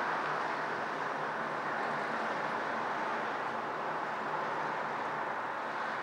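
Steady wash of distant road traffic with a faint low hum underneath, even in level throughout.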